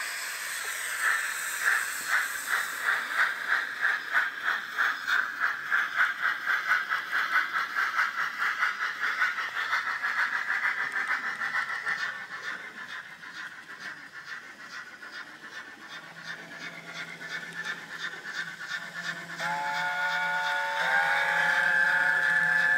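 Recorded LNER A4 steam locomotive sound played by a Zimo MX648 DCC sound decoder through a tiny sugarcube speaker in a Dapol A4 model's cab. A regular beat of exhaust chuffs fades after about twelve seconds into quieter, lighter beats. In the last few seconds a chime whistle sounds several notes at once.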